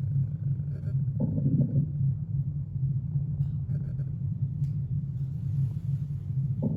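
Bowel sounds heard by auscultation through a stethoscope: two short gurgles, about a second in and again near the end, over a steady low rumble.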